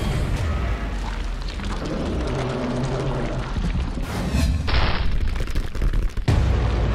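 Cartoon soundtrack of music over a low booming explosion rumble, with a brief noisy burst about five seconds in and a heavy low thump near the end.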